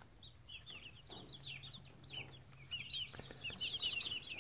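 A flock of five-week-old chicks peeping: many short, high cheeps overlapping one another, growing busier in the last second and a half as they crowd in to feed.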